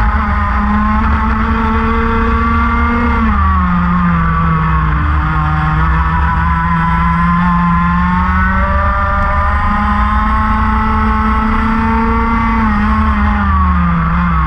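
Racing kart engine running hard, its note falling sharply about three seconds in, climbing back slowly and falling again near the end as the kart lifts for corners and accelerates out of them.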